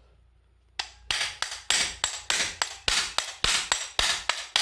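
A hammer strikes a hand impact driver (obeng ketok) over and over, driving out a pin on a washing machine's spin-dryer motor. The sharp metal blows start about a second in and come about three a second.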